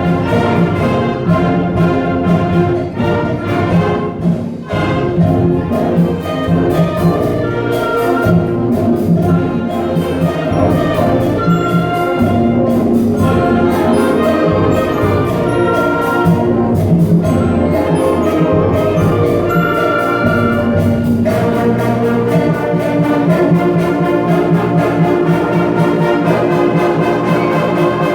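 Student band playing a piece with brass chords over a steady beat of percussion strikes.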